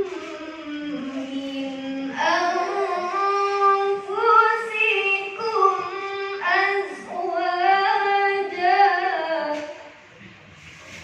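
A young, high voice chanting Qur'anic verses in melodic tilawah style, holding long notes with ornamented pitch turns; the recitation stops near the end.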